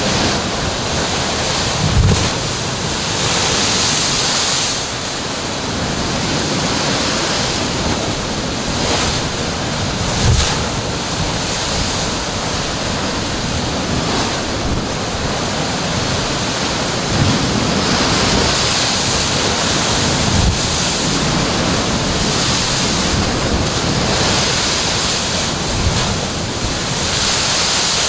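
Heavy ocean surf crashing into a rocky inlet and water pouring back off the rock ledges: a continuous loud rush that swells with each incoming wave, broken by several short low thumps.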